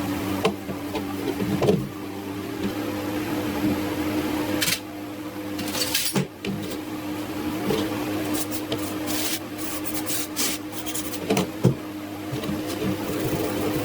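A small electric motor running steadily with a constant hum, with scattered clicks and short hissing scrapes from work on a part.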